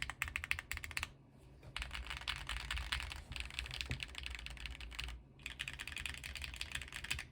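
Fast typing on a plateless QK75 mechanical keyboard with lubed Azure Dragon linear switches and nPBT keycaps, in three runs of quick keystrokes with short pauses about a second in and about five seconds in.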